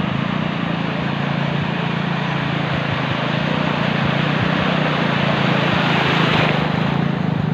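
A motor engine running steadily under a wash of noise, the noise swelling for a moment about six seconds in.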